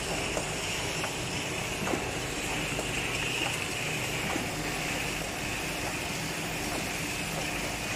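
Automatic pencil cartoning machine running: a steady mechanical noise with a high hiss and a few light clicks.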